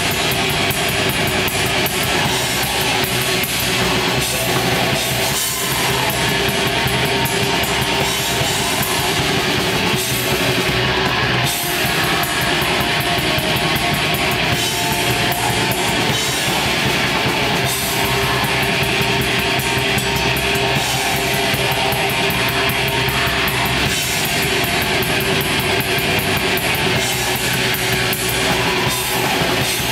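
Black metal band playing live: distorted electric guitars over fast, dense drumming, a steady wall of sound without a break.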